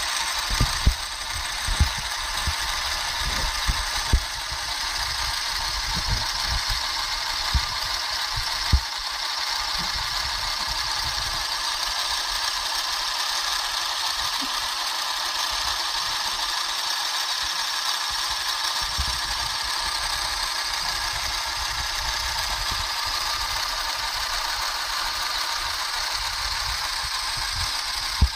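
A 1/6-scale Ford 427 SOHC model V8 engine running, its small electric motor turning the model's crank, pistons and valvetrain with a steady mechanical whir. A few sharp knocks come in the first nine seconds.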